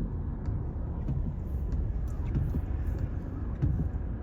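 Car driving along: a steady low rumble of road and engine noise, with a few faint clicks.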